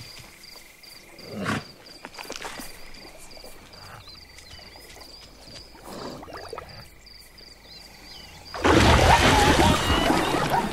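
Cartoon savanna ambience with a steady, regular high chirping and a few soft drinking gulps from zebras at a waterhole. About nine seconds in comes a sudden loud splash and commotion as a crocodile lunges out of the water and the zebras scatter.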